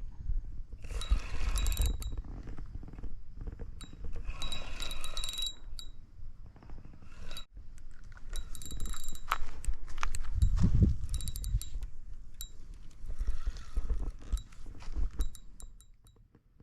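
Fishing reel and tackle working a hooked fish: rasping bursts of winding, twice in the first half and again partway through, with bright metallic ticks and low handling rumble.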